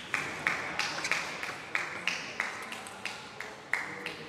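Table tennis balls bouncing and being struck, a string of sharp ticks about three a second, unevenly spaced, each with a brief ring.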